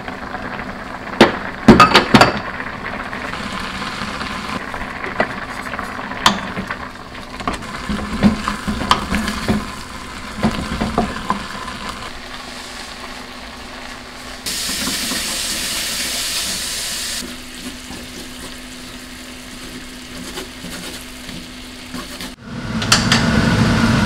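Earthenware pot lid clinking as it is lifted off a pot of boiling rice. A wooden spatula then stirs the rice in the pot to the bottom with repeated scrapes and knocks, and near the end minced meat starts sizzling in a frying pan.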